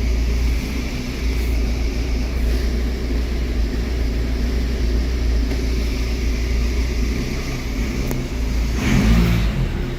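Audi A4 B7 engine running steadily, with a brief louder swell about nine seconds in; a car that would not start after water damage now runs.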